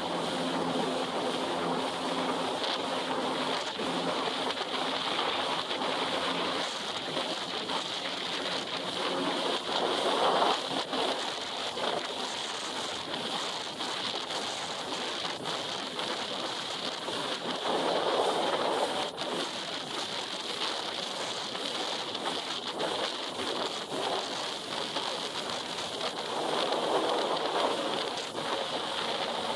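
Yamaha WaveRunner jet ski running at low cruising speed, about 13 mph: a steady rush of wind and water over a lower engine drone, swelling louder three times.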